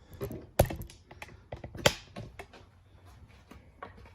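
Small metal parts and hand tools being handled during outboard motor disassembly: a run of light clicks and taps, with two louder knocks about half a second and two seconds in.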